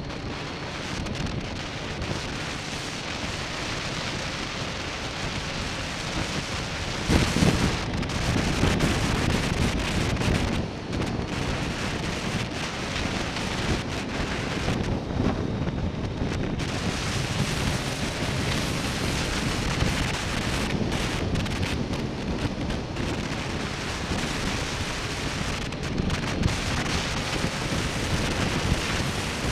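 Wind rushing and rumbling over the microphone of an action camera on a moving 2005 BMW K1200S motorcycle, with the bike's inline-four engine faintly underneath. The wind noise grows louder about seven seconds in.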